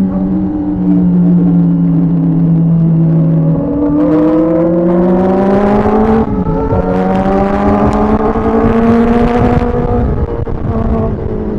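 Kawasaki ZX-4RR's inline-four engine, heard from the rider's seat. It holds steady revs, then accelerates with rising pitch. A quick shift about six seconds in briefly drops the revs, then they climb again and ease off near the end.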